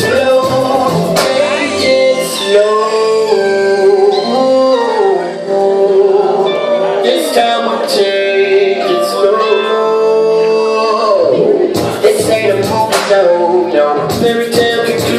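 Recorded song playing loud, a sung melody over chords. The beat thins out through the middle and comes back hard about twelve seconds in.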